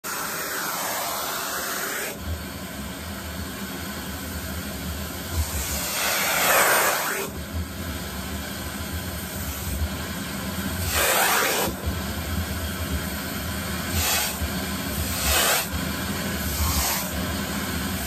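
Henry cylinder vacuum cleaner running steadily, its nozzle sucking at a doll's long synthetic hair. The rush of air swells several times as the nozzle is worked through the hair.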